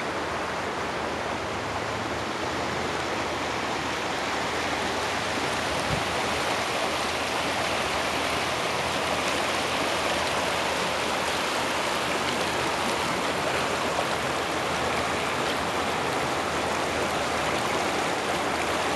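Shallow rocky stream rushing over stones in riffles: a steady babbling of running water, a little louder after the first couple of seconds.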